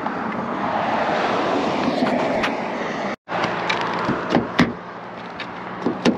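A passing car's road noise swells and fades. After a cut, a few sharp clicks and knocks from a car's rear door handle being worked by hand.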